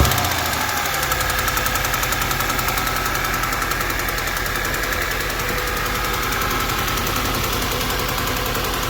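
2009 Audi A4 B8's 2.0 TFSI turbocharged four-cylinder engine running steadily, with a fast, even ticking riding over it.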